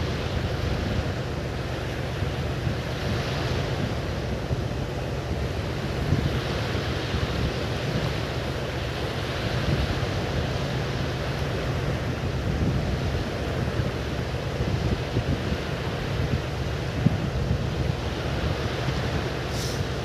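Wind buffeting the microphone with a heavy, uneven rumble over a steady outdoor rushing noise that swells a few times.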